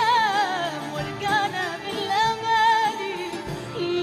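Arabic song performed by a woman singing over an orchestra: her voice carries a wavering, ornamented line above sustained strings.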